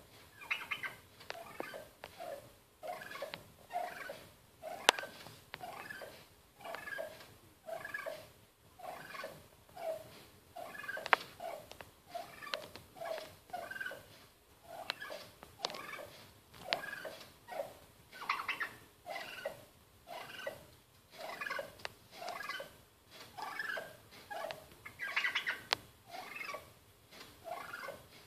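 Tom turkey making soft, rolling calls over and over, about one a second, directed at its own reflection in a mirror. Two sharp clicks stand out, about five and eleven seconds in.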